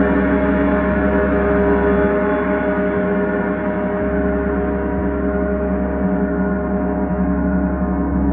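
Paiste symphonic gong ringing in a sustained wash of many steady overtones, its deep low hum easing and swelling again a few times as it is kept going.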